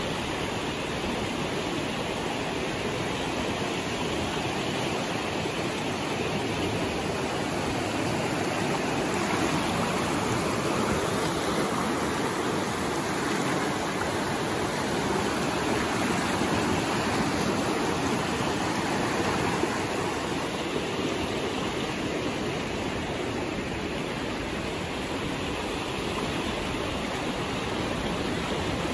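Kern River running high and fast: a steady rush of whitewater, swelling slightly in the middle.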